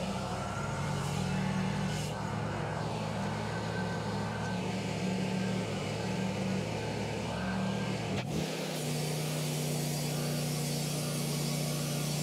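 Engine of a portable bandsaw sawmill running steadily. About eight seconds in there is a sharp click, and the engine note changes and settles, with a hiss above it.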